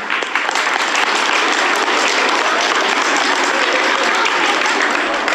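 Audience of schoolchildren applauding, many hands clapping in a steady, dense patter.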